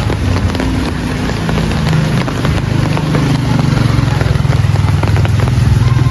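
A small engine running steadily, getting louder about halfway through, over a steady hiss of rain.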